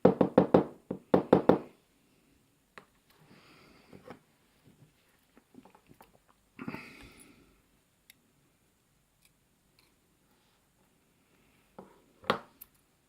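Handling of a disassembled pin-tumbler lock cylinder and its parts: a quick run of about seven sharp knocks, then scattered small clicks and two brief scrapes, with a couple of louder clicks near the end.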